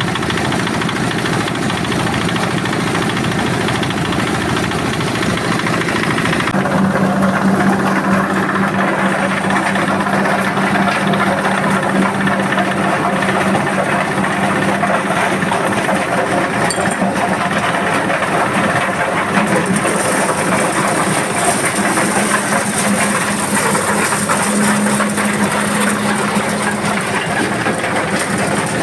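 Corn sheller machine driven by an 8 HP diesel engine, running steadily. About six and a half seconds in the sound changes and a steady hum comes in and holds.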